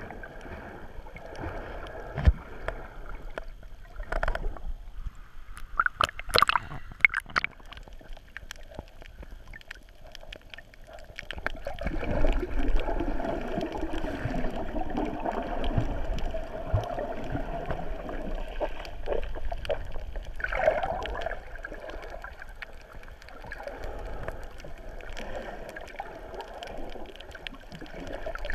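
Muffled underwater water noise picked up by a submerged camera: gurgling and sloshing, with a quick cluster of sharp clicks and pops early on and a louder churning stretch through the middle.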